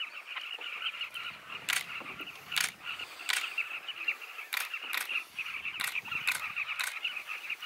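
A colony of carmine bee-eaters calling, a dense, steady chatter of short calls. A camera shutter clicks about eight times through it.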